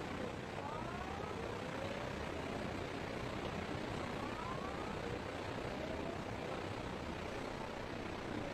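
Steady background noise of road traffic, with faint short rising siren-like tones about a second in and again around four seconds in.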